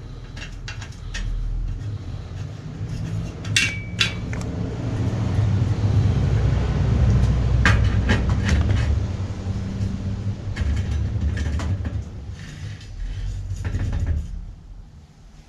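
Metal clinks and handling noise from fitting a welded double chainring crankset onto a bicycle's bottom bracket, with a few sharp clinks about four and eight seconds in. A steady low hum runs underneath.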